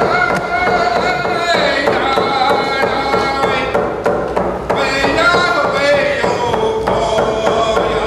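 A man singing an Indigenous song in long held notes with glides, beating a hide frame hand drum in a steady even beat.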